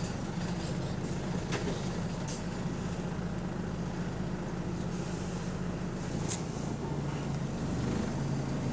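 Engine of a Volvo hybrid double-decker bus running with a steady low hum, heard from on board, with three short sharp ticks along the way.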